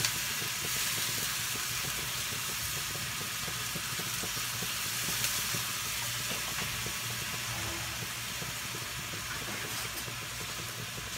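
Chicken and pork pieces sizzling steadily in a wok as soy sauce is poured over them, the sizzle easing slowly.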